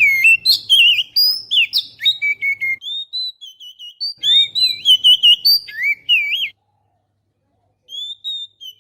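Oriental magpie-robin (kacer) song played as a lure call: a rapid run of varied, sweet whistles and chirps. It breaks off about six and a half seconds in and picks up again just before the end.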